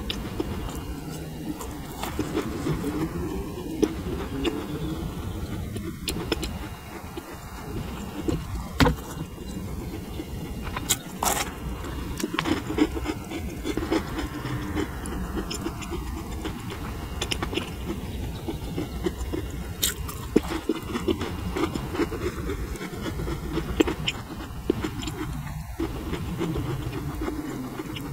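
Macarons being chewed and bitten close to the microphone, with sharp crackles scattered throughout as the crisp shells break.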